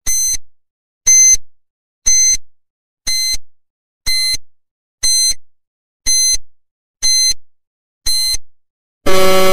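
Countdown timer beeping once a second: nine short, high-pitched beeps, then a longer, louder, lower buzzer near the end signalling that time is up.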